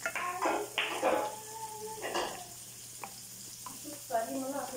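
Wooden spoon stirring and scraping through crab pieces and squash chunks in a wok of simmering coconut-milk sauce, over a steady sizzling hiss. There are several separate strokes, some with a brief squeak of the spoon on the pan.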